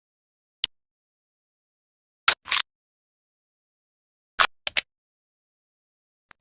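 Short, sharp clicks of Colt M1911 pistol parts being fitted together during reassembly, coming singly or in quick groups of two or three with silence between.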